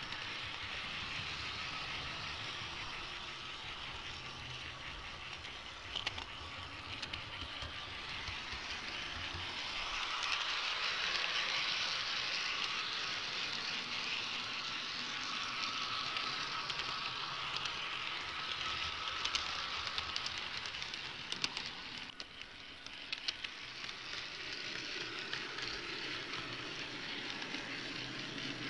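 HO-scale model train running along its track, picked up by a camera riding on the train: a steady rushing noise from the wheels and rails, with a few sharp clicks.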